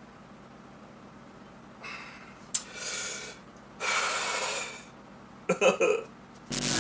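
After a quiet start, a man breathes out heavily three times, once about every second, as he relaxes from a flex. He makes a short grunt-like sound near the end, and then music starts suddenly.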